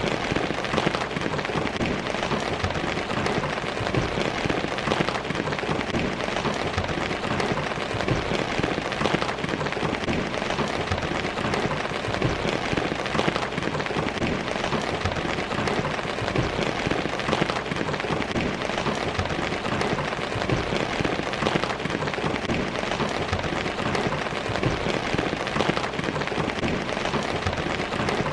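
Steady heavy rain falling and pattering on surfaces, an even dense hiss flecked with many small drop impacts.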